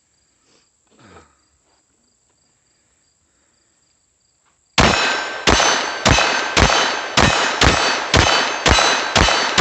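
Glock 44 .22 Long Rifle pistol fired rapidly about nine times, roughly two shots a second, starting nearly five seconds in, each hit ringing a steel target.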